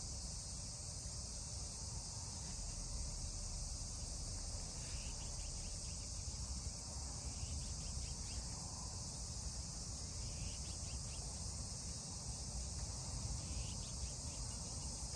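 Steady, high-pitched chorus of insects, crickets or similar, with a low rumble underneath.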